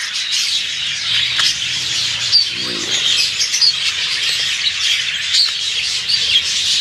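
A chorus of birds chirping and squawking without a break, many calls overlapping, with one lower call about two and a half seconds in.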